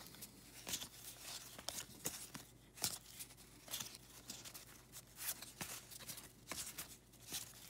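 Cardboard 1986 Topps baseball cards being flipped through by hand: short irregular flicks and slides of card against card, several a second.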